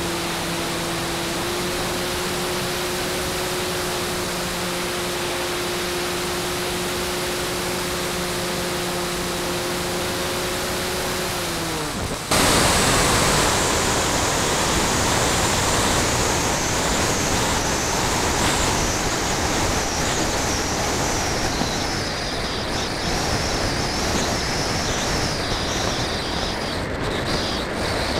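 Onboard a radio-controlled model airplane: the motor and propeller run with a steady hum over rushing air, then wind down and cut off about twelve seconds in. After that, loud wind rushes past the airframe as the plane glides unpowered, with a faint high whistle that slowly falls in pitch.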